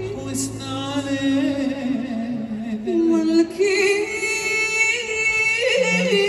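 Live music: a woman singing a sustained, ornamented line with vibrato over an orchestra accompaniment with strings and oud.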